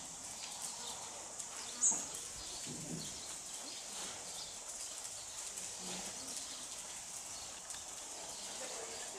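Faint ambience of horses walking on a sand arena floor, with soft hoof footfalls. A brief high-pitched chirp about two seconds in.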